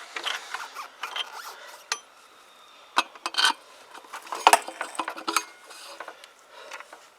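Small metal motorcycle parts handled during front-wheel removal: irregular clicks, scrapes and knocks of metal on metal, the loudest knock about four and a half seconds in.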